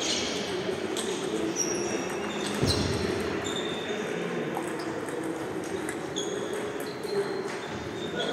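Table tennis balls clicking off bats and tables in a rally, with short high pings from the ball, echoing in a large sports hall over a steady background murmur. A dull thump comes a little under three seconds in.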